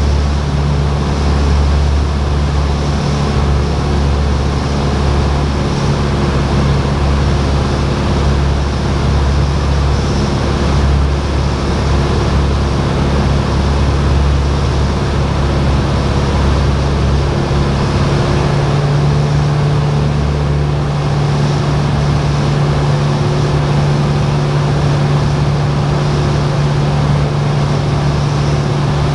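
Piston engine and propeller of a light single-engine airplane in flight, heard inside the cabin as a loud, steady drone with a constant low hum.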